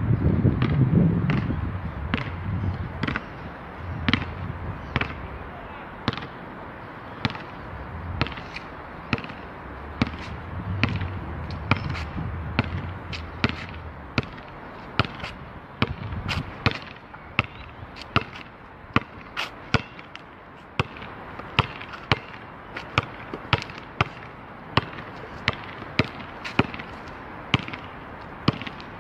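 Basketball bouncing on an outdoor asphalt court as it is dribbled: sharp, regular bounces, about one a second at first and quickening to about two a second in the second half. A low rumble comes and goes near the start and again around the middle.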